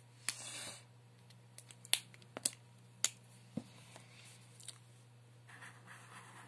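Hands handling a marker pen and a sheet of paper: a brief paper rustle, then several sharp clicks and taps. Near the end the felt-tip marker starts scratching across the paper. A steady low hum runs underneath.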